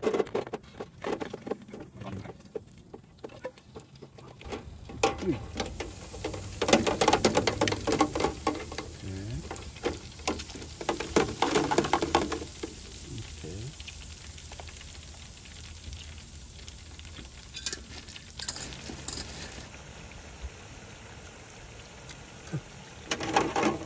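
Breaded nuggets frying in hot oil in an electric deep fryer: a steady crackling sizzle, loudest for several seconds in the middle.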